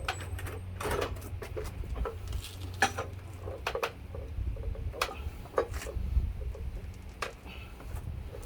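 Tire-iron pry bars and a manual tyre changer clinking and knocking against a wheel rim in irregular metallic clicks while the tyre bead is levered off the rim.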